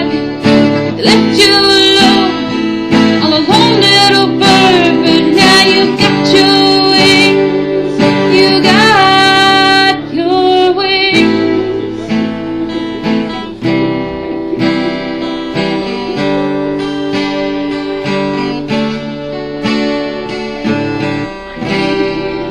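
Closing bars of a song: acoustic guitar strumming and picking, with a wavering melody line over it for about the first ten seconds, then the guitar carrying on alone and slowly getting quieter.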